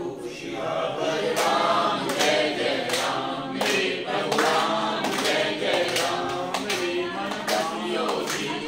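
A group of men and women singing a Hindu devotional chant in unison, clapping hands together on the beat about once a second.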